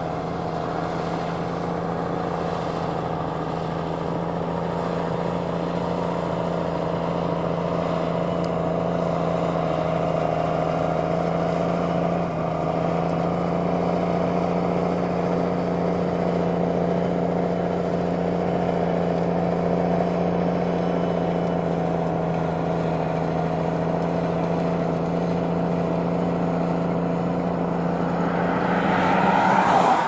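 JCB Fastrac 185 tractor's six-cylinder diesel engine running steadily under load while pulling a five-furrow reversible plough through the soil, growing gradually louder. A brief louder swell of noise comes near the end.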